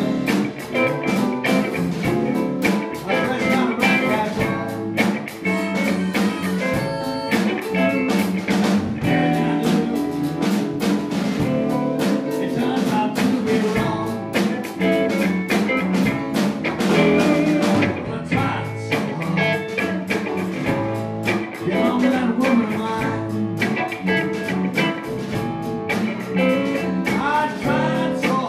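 Blues band playing live: electric guitar, bass guitar, drum kit and electronic keyboard together in a steady groove.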